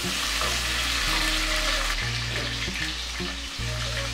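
Green chilies and curry leaves sizzling in hot oil in a clay pot while being stirred with a wooden spatula. The sizzle softens about two seconds in. Soft background music with low held notes plays underneath.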